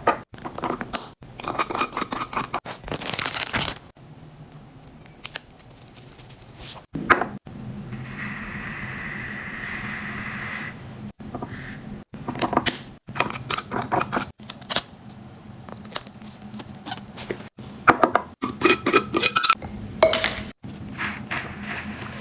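Clatter of food containers, jars and bottles being handled, set down and knocked together, in short rattling bursts with abrupt cuts between them.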